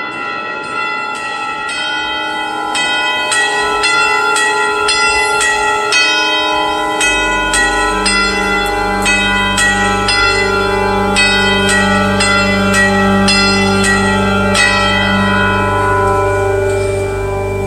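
Church bells pealing in quick succession, about three strikes a second, each note ringing on under the next. About seven seconds in, a low steady drone joins beneath them.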